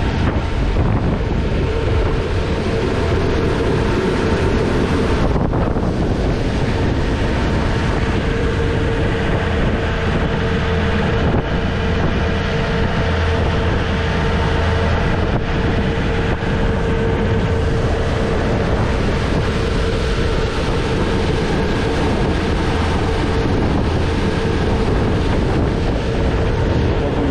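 Glass-bottom tour boat under way at cruising speed: its engine runs with a steady drone and a constant hum. Wind buffets the microphone, and water rushes past in the wake.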